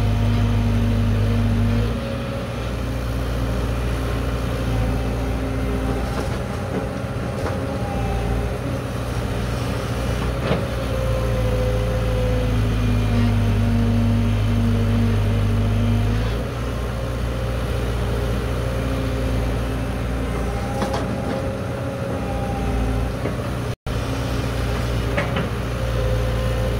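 Caterpillar 312B hydraulic excavator's diesel engine running steadily, working harder and then easing off twice as the boom and bucket move, with a few sharp knocks.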